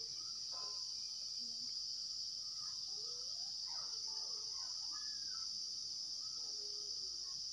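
Steady high-pitched insect trill, like crickets, running on without a break, with faint distant voices wavering underneath near the middle.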